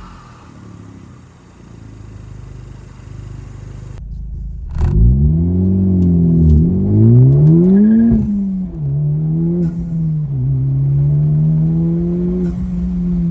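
Honda Civic Type R's turbocharged 2.0-litre four-cylinder engine, with a PRL titanium inlet pipe and intake fitted, revving. About five seconds in, its pitch climbs twice in quick succession with a drop between, then holds steady. Before that there is a quieter stretch that cuts off abruptly about four seconds in.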